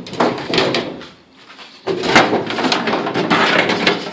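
A panel of a GE over-the-range microwave being pulled up and off, scraping and rattling with sharp clicks. It comes in two spells with a short lull about a second in.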